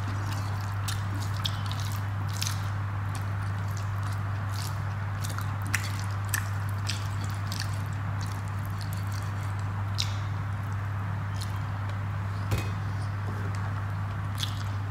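Eating by hand: fingers mixing rice with fried bitter gourd and pumpkin on a plate, and chewing with small wet mouth clicks and squishes, scattered irregularly. A steady low hum runs underneath.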